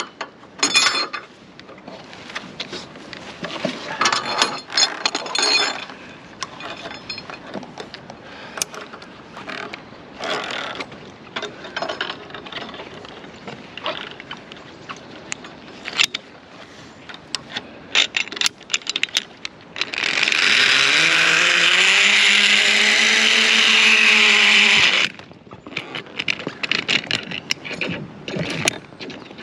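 Metal clinking and clicking as carabiners and a zip-line pulley trolley are handled and clipped onto the steel cable. About twenty seconds in, the trolley runs along the steel cable for about five seconds with a loud rushing noise and a whine that rises in pitch and then holds, cutting off suddenly at the arrival.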